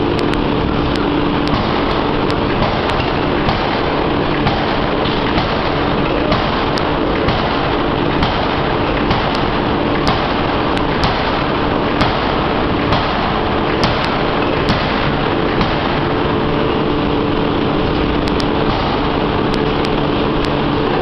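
A 1-ton open-die forging hammer running while it works hot steel: a loud, steady machine noise with short sharp knocks about once a second, the hammer's repeated blows.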